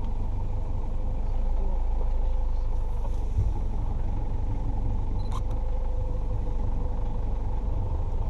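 Open safari vehicle's engine running, a steady low rumble with a faint steady hum over it. A single sharp click about five and a half seconds in.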